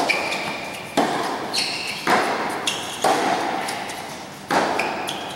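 Tennis rally: the ball struck by racquets and bouncing on a hard court, about one sharp pop a second, each ringing on in a large covered hall.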